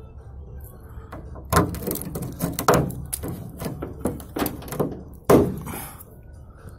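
A blade scraping and prying at the rusted-out sill of a UAZ body, with thick body filler cracking and flaking off the rotted metal: a quick run of scrapes and knocks starting about a second in, the loudest knock near the end.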